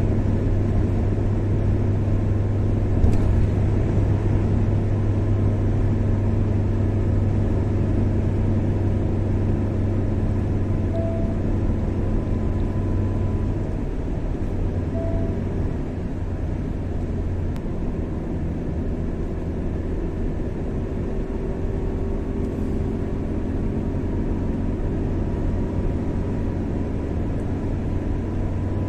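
A car driving at steady speed on a highway: a constant low drone of engine and road rumble, with a short knock about three seconds in.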